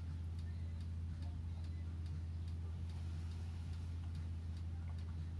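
Steady low hum with faint, regular ticking over it.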